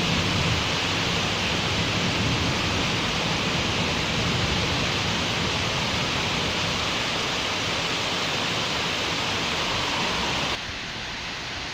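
Heavy rain falling steadily in a dense hiss, with the tail of a thunder rumble fading in the first second. Near the end it drops suddenly to quieter rain.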